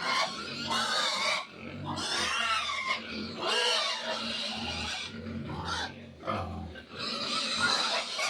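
Three-day-old piglets squealing, loud calls following one another with only short breaks.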